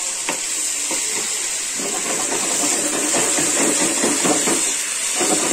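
Tadka masala of onion, tomato and green chilli sizzling steadily in oil in a metal karahi, stirred with a metal spoon that clicks against the pan a few times.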